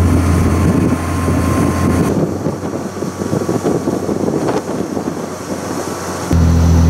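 Vehicle running with a steady low hum. The hum weakens about two seconds in, leaving an uneven rumble, and comes back strongly near the end.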